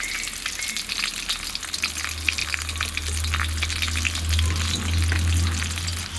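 Very hot sesame oil in an iron kadai sizzling and crackling as asafoetida powder, curry leaves and dried red chillies fry in it, still hot after the stove has been switched off. Under it runs a low rumble that grows louder in the second half.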